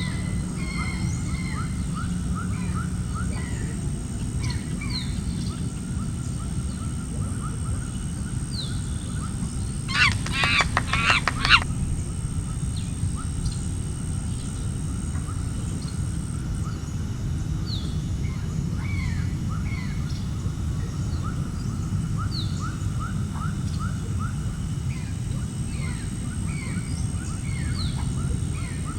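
Many small birds chirping throughout over a steady low rumble. About ten seconds in, a larger bird gives a quick run of loud calls lasting under two seconds.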